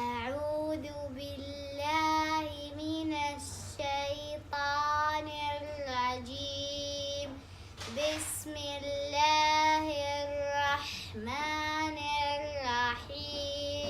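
A girl's voice chanting Quran recitation in melodic tajweed style: long held, ornamented notes in several phrases with short breaths between them.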